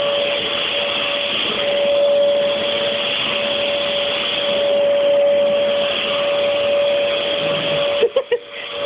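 Hoover vacuum cleaner running steadily, a hissing motor noise with a steady whine. About eight seconds in, the sound breaks up in a few sharp drops.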